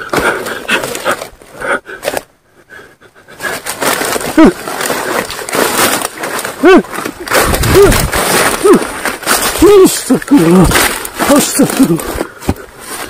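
Rustling and crashing through dry leaves and undergrowth as someone moves through brush, hushing briefly about two seconds in. From about four seconds on, a run of short, strained vocal cries rises and falls in pitch, roughly one a second.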